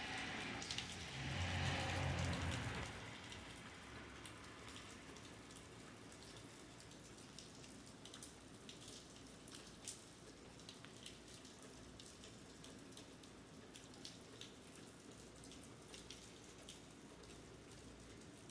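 Rain falling on pavement: a steady patter with scattered single drop ticks. In the first few seconds a louder swell with a low rumble rises and fades.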